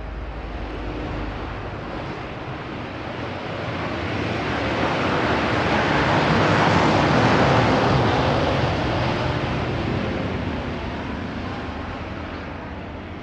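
Airplane passing overhead: engine noise builds up, is loudest about seven seconds in, then slowly fades away.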